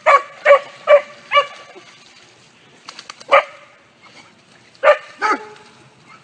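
A dog barking in short, sharp barks: four in quick succession in the first second and a half, one more about three seconds in, and two close together near five seconds.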